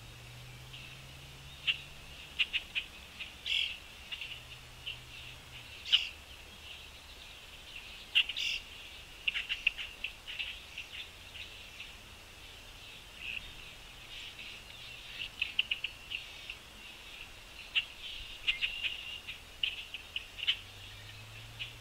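Birds chirping: many short, quick chirps, often in rapid clusters, with a few louder single chirps.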